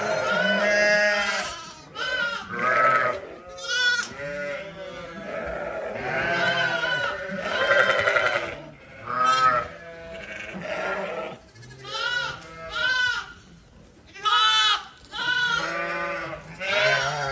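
Sheep and lambs bleating again and again, one call after another with many overlapping, some of the calls quavering.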